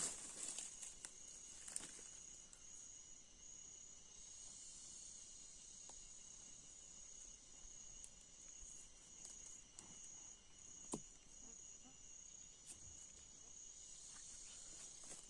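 Insects chirping steadily in the background, a faint high-pitched pulsing drone, with a single sharp click about eleven seconds in.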